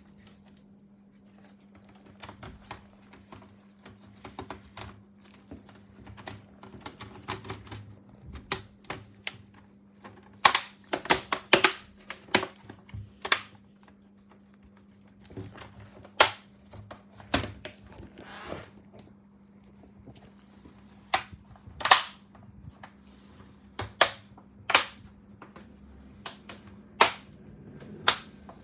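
Sharp plastic clicks and snaps from the Asus X453M laptop's top case as it is pressed down around the keyboard and palm rest and its clips snap into place. There is a quick cluster of clicks about ten seconds in, then single snaps every second or two.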